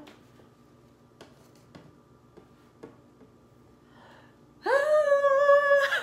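A few faint light knocks as a rope-wrapped door hanger is hooked over the top of a door. Then a woman sings one long held note.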